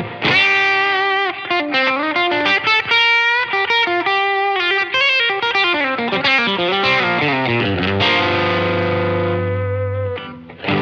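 Telecaster-style electric guitar played through the LPD Pedals CLE-304 optical compressor and EQ pedal, with a lightly driven tone. It plays a lead line with notes bent or slid in pitch, then rings out a held chord that stops about a second before the end.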